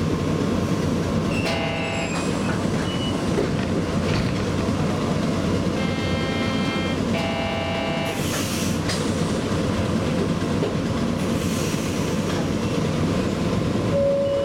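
Cabin sound of an Okayama Electric Tramway streetcar standing at a stop: a steady low rumble and hum, with short electronic chime-like tones about a second and a half in and again twice around six to eight seconds in, and a couple of brief hisses of air later on.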